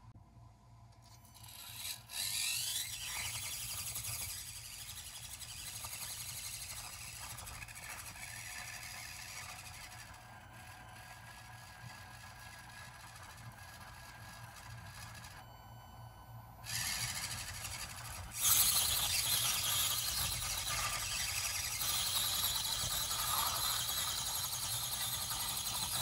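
Axial SCX24 mini RC crawler on stock axle gears, its small electric motor and gear train whining as it crawls slowly up a steep board. The whine starts about two seconds in and gets louder in the last third.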